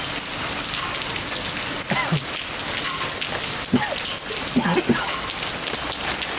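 Steady rain falling on a surface, an even hiss of drops. A few short pitched sounds rise out of it about two seconds in and again around four to five seconds in.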